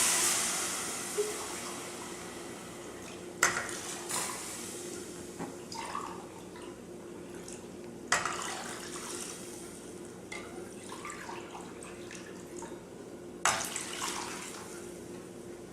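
Water poured into a pot of hot, butter-fried rice, hissing as it hits the pan and fading to a softer sizzle and bubbling. Three more pours follow about every four to five seconds, each with its own sudden hiss that dies away.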